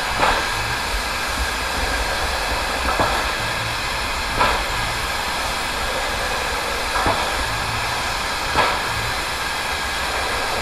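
JS-class steam locomotive standing with steam up, giving a steady hiss of steam broken by short, louder beats at uneven intervals of a second or two.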